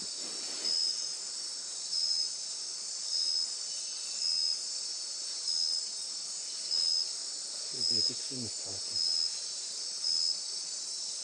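Rainforest insect chorus: a steady high-pitched buzzing, with one short chirp repeating regularly about once a second.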